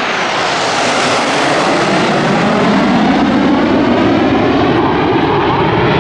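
Red Arrows BAE Hawk T1 jets flying past: a loud, continuous jet rush whose tone slowly sweeps up and down as they pass.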